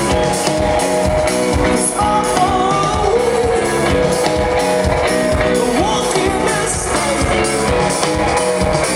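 Live band playing a rock song, with singing over guitar and a steady drum beat.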